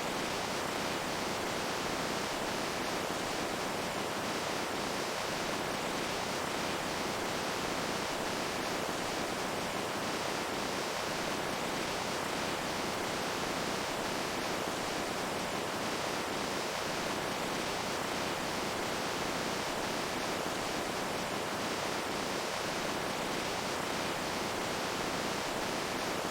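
Water rushing steadily and evenly, with no breaks or changes.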